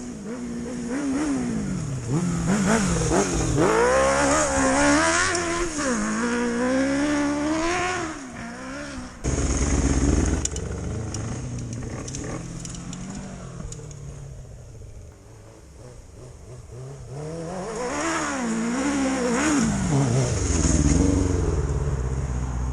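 Motorcycle engine revving, its pitch rising and falling again and again. About nine seconds in the sound changes abruptly to a quieter stretch, then the revving builds up again.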